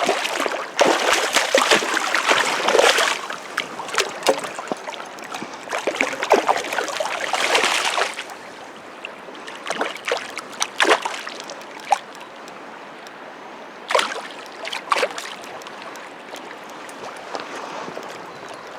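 River water splashing in irregular bursts, with a steady background flow, as a hooked trout is brought in and landed in the shallows.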